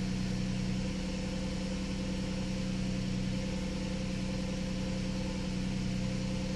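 Volkswagen Routan's 3.6 L Pentastar V6 idling with a steady hum, heard from inside the cabin. The van runs badly and will not accelerate.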